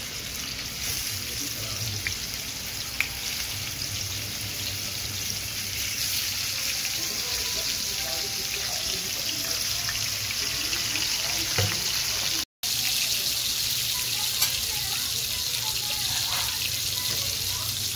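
Hilsa fish pieces sizzling as they fry in shallow oil: a steady hiss with scattered sharp spits and crackles. The sound cuts out for a split second about two-thirds of the way in.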